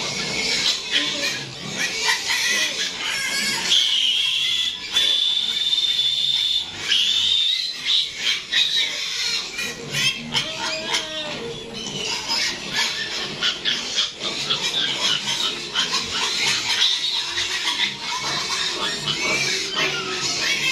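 Piglets squealing loudly and repeatedly as they are caught and held for treatment. There is one long, steady, high squeal lasting about three seconds from about four seconds in.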